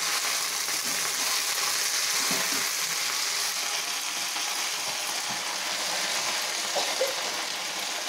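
Hot oil sizzling steadily in a kadai as handfuls of freshly washed water clover leaves (sunusunia saag) are tossed in to fry.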